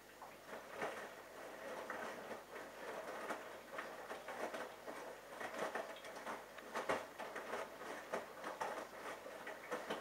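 Bosch Logixx washing machine drum starting to turn in the first rinse, the wet load tumbling and sloshing through the rinse water in an irregular splashing patter.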